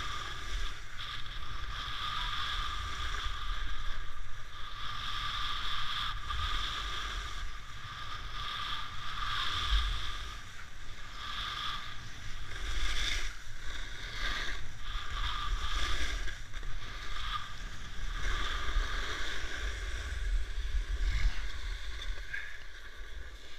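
Edges carving turns across freshly groomed corduroy snow: a steady scraping swish that swells and eases with each turn, over a low rumble of wind on the microphone.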